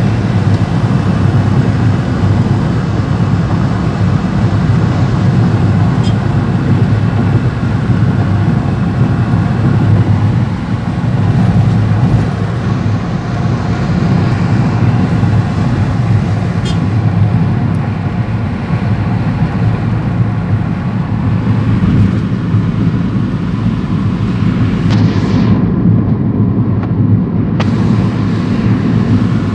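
Car cabin noise while driving at a steady speed: a continuous low hum and rumble of engine, tyres and road, loud and even throughout.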